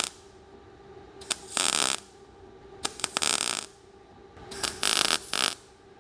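MIG welding arc crackling on 22-gauge sheet steel in three short bursts of about half a second, each with a brief sputter just before it. These are short stitch welds, made to keep the heat from building up and blowing through the thin sheet.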